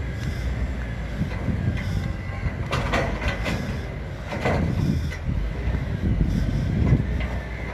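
Container freight train wagons with a steady low rumble, and a few short metallic screeches and clanks a little before and after the middle.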